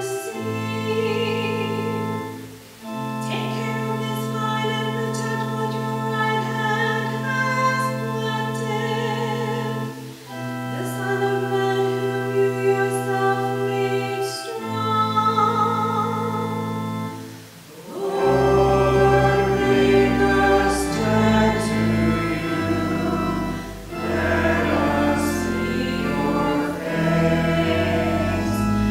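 A woman cantor sings a verse of the responsorial psalm with organ accompaniment. For the first eighteen seconds the organ holds long sustained chords under her melody, with brief breaks between phrases. After that the accompaniment becomes fuller and more moving, with deep bass notes.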